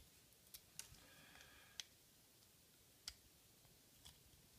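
Faint, scattered clicks of a small screwdriver working the screws of an Elma stepped-attenuator rotary switch, about five light ticks with a faint scrape about a second in.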